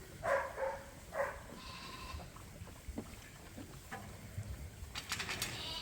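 Lambs bleating: a few short calls in the first two seconds, one of them higher-pitched, followed near the end by a quick run of clicks and rustles.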